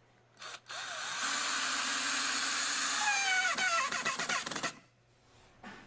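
Power drill driving a screw into a cedar log to lock a tenon joint, running steadily for about four seconds, its pitch falling over the last second or so as the screw draws tight, then stopping.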